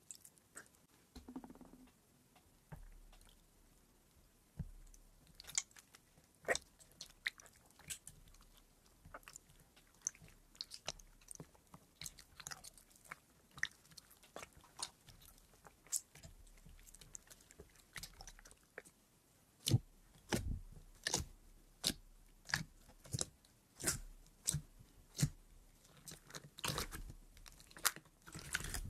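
Crunchy slime being mixed and squeezed by hand in a bowl: a stream of sharp crackles and pops, sparse at first and louder and closer together in the last third.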